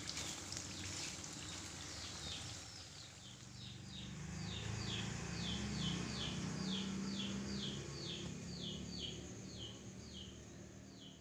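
A bird calling over and over in a fast string of short falling chirps, about two and a half a second, beginning a few seconds in. Under it a low hum swells and then fades in the middle.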